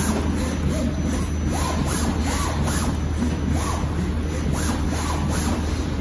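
Garment inkjet cutting plotter at work: the print-head carriage shuttling across the paper, its drive motor giving repeated short whines that rise and fall in pitch, over a steady low hum.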